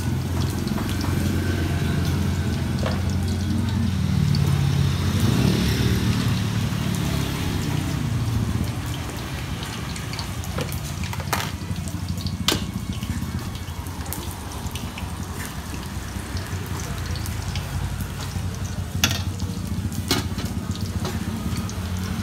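Scattered sharp clicks of a knife and spoon against a bowl and utensils during food preparation, over a steady low hum.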